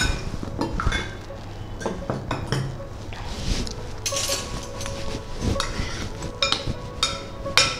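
A metal whisk, then a spoon, clinking and scraping against a glass bowl as thick spiced yogurt with fried vegetables is stirred, in a run of irregular small clicks.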